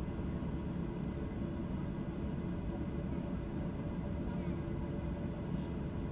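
Cabin noise of a Boeing 737-800 taxiing: a steady low rumble with an even hum from its CFM56-7B engines at low thrust.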